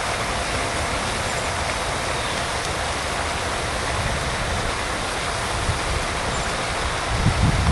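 Steady rushing noise, with a few low thumps near the end.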